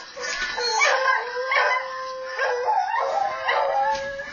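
Beagles howling, several voices overlapping in long, wavering howls at different pitches: a pet beagle howling along with recorded beagle howls played back from a video.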